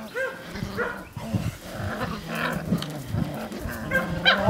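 Young puppies yipping: a few short yips at the start, then a low, rough growl that carries on with small breaks, and one sharp, high yelp near the end.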